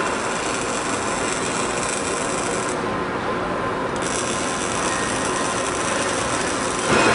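Motoman K10S welding robot running in test mode: a steady mechanical whir and rattle from its drives and gears. The high hiss cuts out for about a second in the middle, and a louder burst comes near the end.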